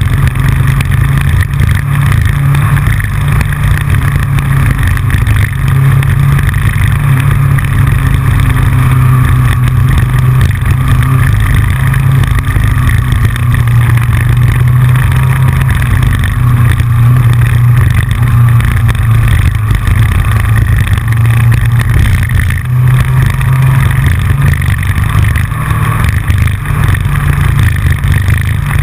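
Yamaha FJR motorcycle's inline-four engine running at a steady cruise, with wind and road noise, heard from a GoPro on the front fairing. Over it runs a constant clicking from the loosely fixed camera mount.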